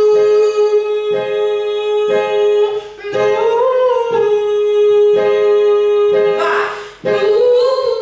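A singer holding long, steady sung notes on a vocal exercise, with a slight wavering lift in pitch partway through, a quick breath about two-thirds in, then another held note, over piano accompaniment.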